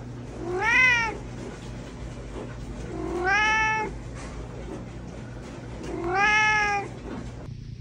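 Domestic cat meowing three times, each meow under a second long and about three seconds apart.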